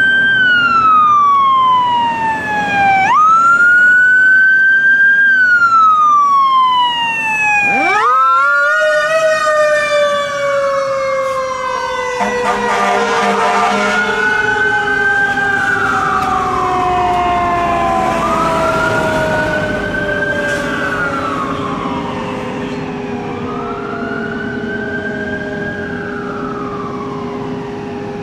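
Fire truck siren on a 2020 Pierce Impel PUC wailing, its pitch rising and falling again and again. About eight seconds in a new wail starts, one tone then falls slowly for the rest while further wails sound over it, and the whole sound fades as the truck drives away.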